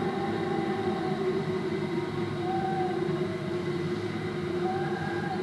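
Howling desert wind sound effect: a steady low moan with a higher whistling tone that swells and fades three times.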